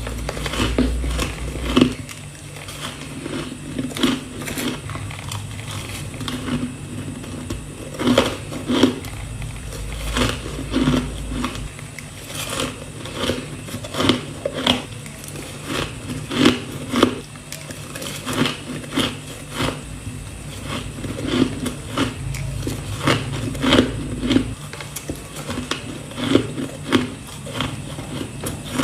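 Repeated bites into soft ice close to the microphone, each a sharp crunch, a few every couple of seconds.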